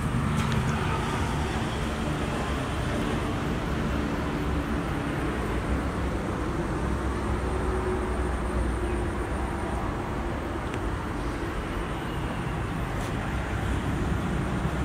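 Steady low rumble of distant road traffic, with a faint high-pitched steady whine running above it for much of the time.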